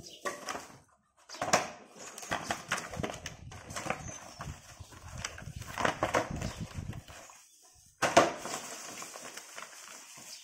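Cardboard boxes being handled and lifted off a stone surface: irregular rustling and knocks, the loudest a sharp knock about eight seconds in.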